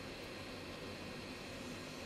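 Steady airflow hiss from a budget hot air rework station, set to 400 °C and blowing on a charging connector to melt its solder for desoldering.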